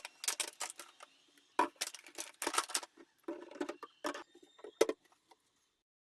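A run of small, irregular clicks, taps and rustles of objects being handled, which stop about five seconds in.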